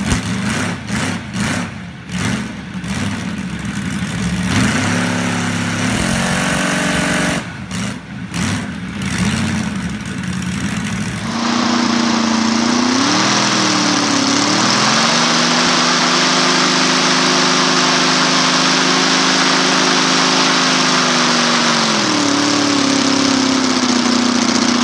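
Deep-sounding 220cc Phoenix V4 model aircraft engine running with its propeller, uneven at first with the revs wavering. About eleven seconds in it gives way to a steadier run that climbs in pitch, holds there, and drops back near the end.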